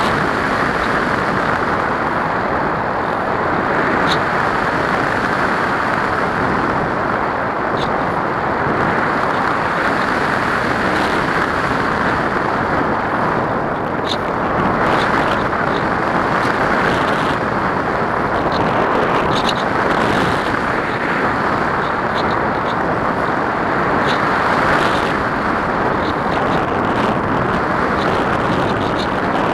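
Wind rushing loudly over a nose-mounted onboard camera on a ParkZone Radian RC glider in flight: a steady airflow hiss that swells and eases a little, with no motor whine, as the plane glides. Faint light ticks come through now and then.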